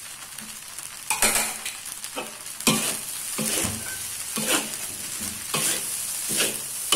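Rice vermicelli stir-frying in a large metal wok: a steady sizzle, with a scraping, rustling stroke each time the spatula and spoon turn and toss the noodles, about once a second from about a second in.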